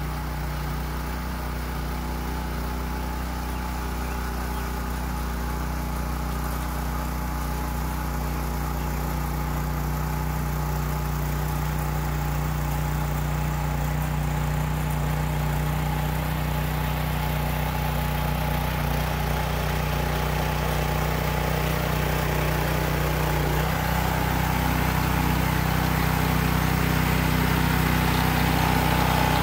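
Small gasoline engine of a rear-tine garden tiller running steadily under load as its tines churn sand into the soil, growing louder as the tiller comes closer. The engine note shifts slightly about 24 seconds in.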